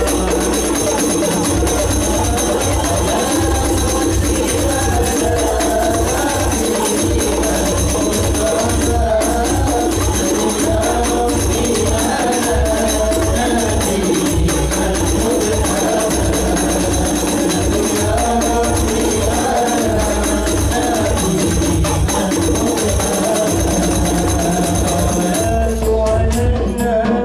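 Hadrah ensemble performing sholawat: young men singing a devotional melody together over a steady beat of rebana frame drums with jingles.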